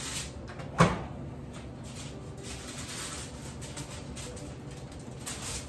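Kitchen oven door pulled open with a sharp clunk about a second in, followed by soft rustling and light clatter.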